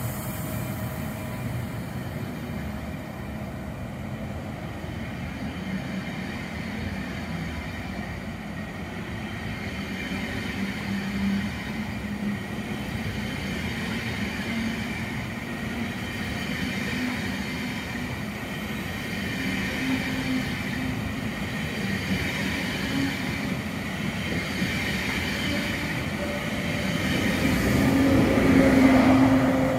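ICE high-speed train pulling away along the platform: steady wheel-on-rail rolling noise with a low hum that slowly rises in pitch as it gathers speed. It gets louder near the end as the rear of the train passes close by.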